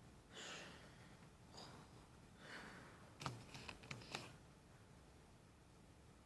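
A sleeping person breathing faintly, three soft breaths in a row, then a quick run of sharp clicks and taps about three seconds in.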